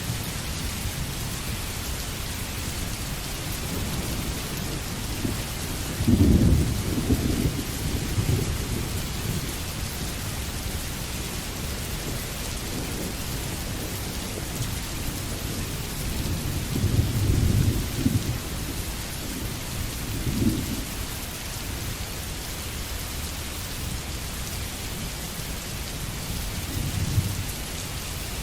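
Steady rain falling, with several rolls of thunder: the loudest breaks sharply about six seconds in, another long rumble comes a little past the middle, followed by a shorter one, and a last, weaker one near the end.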